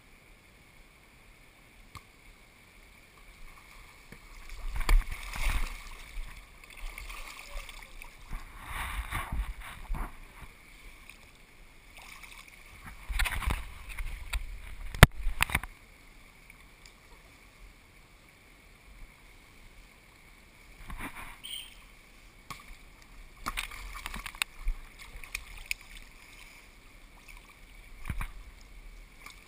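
Pool water sloshing and splashing close to a camera held at the waterline, in irregular bursts, with one sharp knock about fifteen seconds in.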